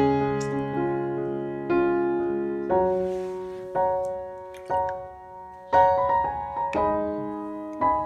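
Slow piano music, with a new note or chord struck about once a second and each one ringing out and fading before the next.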